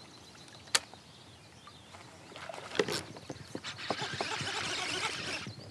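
A kayak paddle working the water, with splashing and small knocks that build from about two and a half seconds in. A single sharp knock comes just under a second in.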